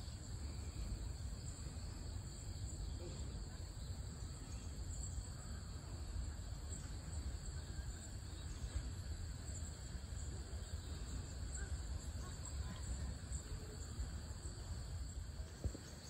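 Faint outdoor ambience: a low, steady rumble with a thin, steady high-pitched hum over it.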